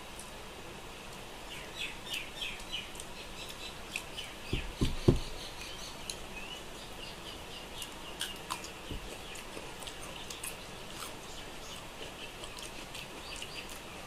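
Eating by hand: fingers mixing rice on a steel plate, with chewing and small clicks, while small birds chirp in the background. A few dull thumps just under five seconds in are the loudest sound.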